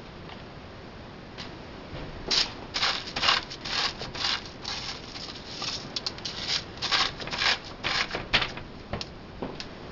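Crushed potato chips crunching and rustling as they are handled for a chicken coating: a run of short, irregular crunches, about two to three a second, starting about two seconds in and stopping near the end.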